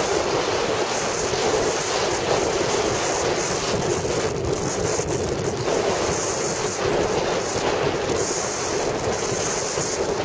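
Steady rush of wind buffeting the microphone on a moving motorcycle, with the motorcycle's running and road noise mixed underneath.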